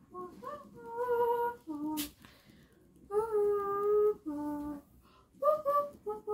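A high-pitched voice making a series of drawn-out tonal notes, two of them held about a second, with lower short notes between and a quick run of short notes near the end.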